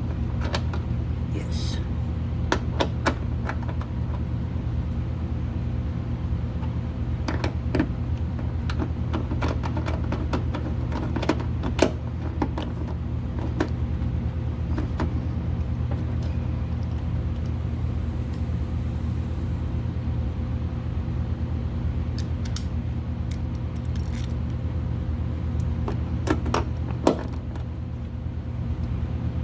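Scattered metal clicks and clinks of hand tools and fasteners being worked on a car's wiring and ground connection, over a steady low hum.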